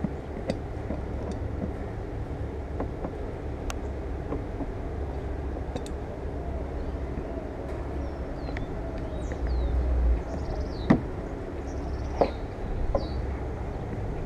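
Scattered sharp clicks and knocks of hand work as trim parts on the car are fastened and tightened, over a steady low outdoor rumble. A few short high chirps come near the end.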